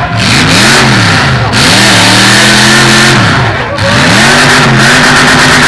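Demolition derby car's V8 engine revving hard, climbing three times and held at high revs in between before dropping back.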